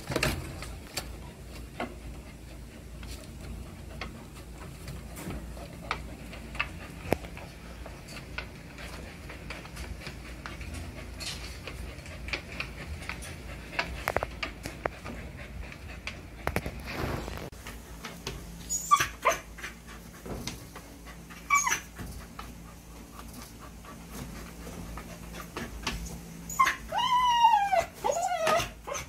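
Pregnant Siberian husky scratching and rustling in torn cardboard as it nests before whelping, then whimpering: two short whines, and near the end a quick string of wavering, rising-and-falling whines from the restless dog in pre-labour.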